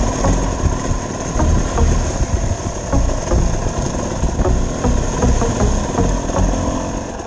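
Off-road vehicle engine running, its sound rising and falling in repeated surges.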